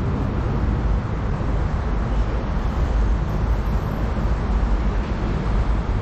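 Steady low rumbling outdoor background noise, heaviest in the bass, with no distinct events standing out.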